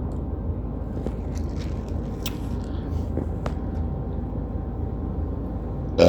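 Scattered small clicks and taps of eating over a steady low hum. Right at the end a loud, rough burp begins.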